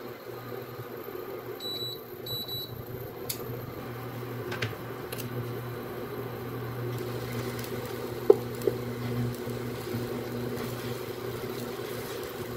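Induction cooktop humming steadily under a frying pan of beef cooking in its own juices. Two short electronic beeps about two seconds in, and a sharp metal clink of tongs against the pan a little past eight seconds in, with a lighter one just after.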